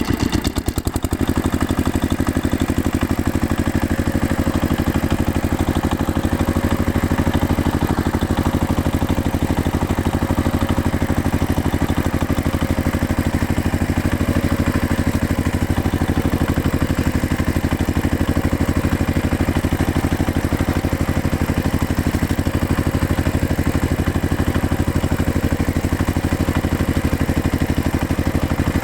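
Tractor engine running steadily with an even, rapid firing beat, dipping briefly about a second in before settling.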